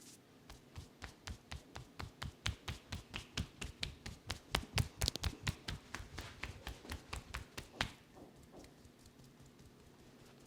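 Hands patting rapidly on a head in a percussive Indian head massage, about five quick taps a second, growing louder toward the middle and stopping about eight seconds in.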